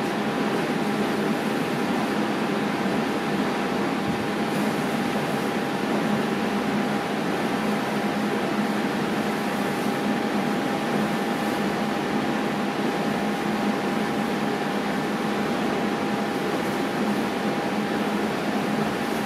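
A fan motor running steadily: an even whirring hum with a constant high whine over it.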